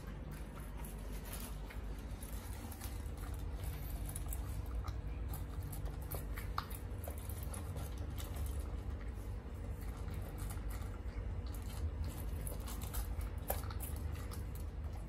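Pug puppy eating dry kibble from a plastic bowl: irregular crunching and small clicks of pellets against the bowl, over a steady low hum.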